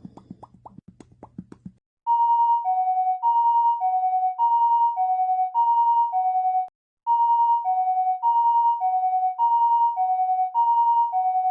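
Electronic two-tone hi-lo siren sound effect: a pure tone switching back and forth between a higher and a lower pitch about every half second, with a brief break about two-thirds of the way through. Before it starts, a short run of faint quick clicks.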